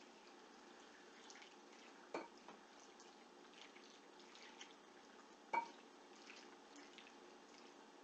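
Faint scraping and drips as white sauce is scraped out of a stainless steel saucepan onto sliced potatoes, with two sharp knocks of the utensil against the pan, about two seconds and five and a half seconds in.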